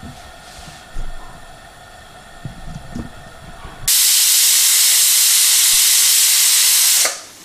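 Pressure cooker whistle: steam blasting out of the weight valve as a loud, steady hiss, starting about four seconds in and cutting off abruptly some three seconds later. It is the first of the two whistles counted as the cooking time.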